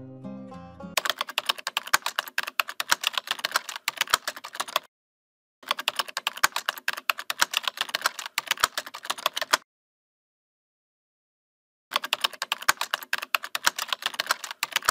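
Keyboard typing sound effect: rapid clicks in three runs of about four seconds each, with dead silence between them, laid over text being typed onto the screen. Plucked-string music fades out in the first second.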